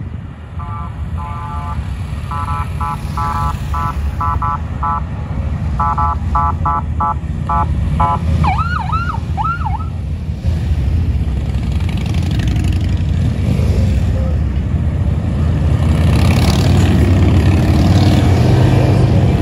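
Police siren sounding a series of short horn-like blasts, then four quick rising-and-falling whoops about eight seconds in. Underneath, the rumble of motorcycle engines grows louder as a column of large touring motorcycles rides past, loudest near the end.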